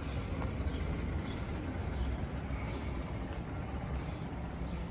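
Footsteps on stone paving at a walking pace, a faint tick about every two-thirds of a second, over a low steady rumble.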